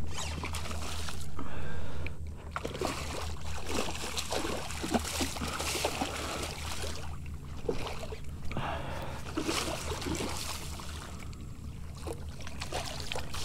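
A large hooked redfish thrashing at the surface right beside a kayak, splashing and churning the water in repeated surges. A steady low hum runs underneath.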